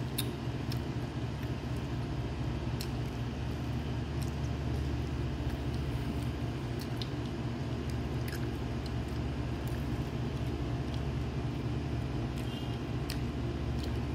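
A steady low machine hum, with scattered small clicks and squishes from fingers pulling apart roast lamb on a rice platter.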